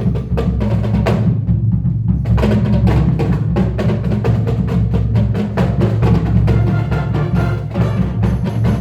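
Marching band music dominated by percussion: quick drum and wood-block strikes over a steady low bass, the high strikes briefly thinning out a little after a second in.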